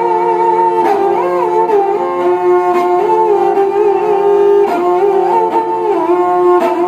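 Kamaicha, the bowed folk lute of the Thar desert, playing a winding melody over a steady drone from its other strings, with sharp accents about once a second.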